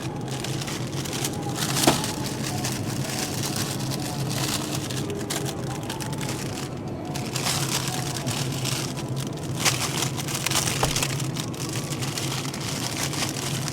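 Rustling and crackling over a steady low hum, with a sharp click about two seconds in and another near ten seconds.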